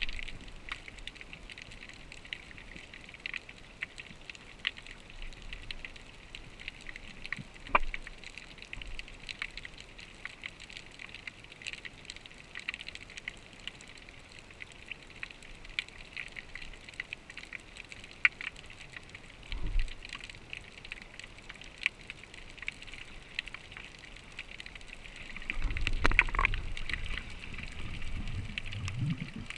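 Underwater ambience heard through a GoPro's waterproof housing: a steady hiss with constant fine crackling and scattered clicks. A louder low rumble of moving water comes in about 26 seconds in and runs for a few seconds.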